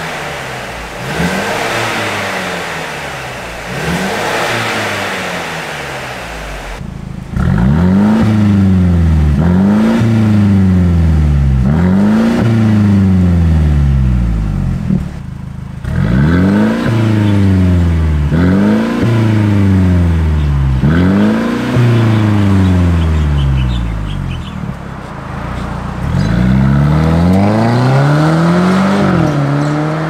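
Mercedes-Benz C300 coupe's 2.0-litre turbocharged four-cylinder free-revving over and over, each rev climbing sharply and falling back. It is quieter at first on the stock exhaust. About seven seconds in it becomes much louder through a Fi Exhaust valvetronic catback, at about one rev every two seconds. Near the end it revs once more and pulls away.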